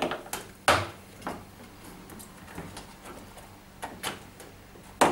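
Scattered sharp clicks and knocks, the loudest about a second in, as the wire clamp spring is worked around a front-loading washing machine's rubber door seal with a screwdriver and hands.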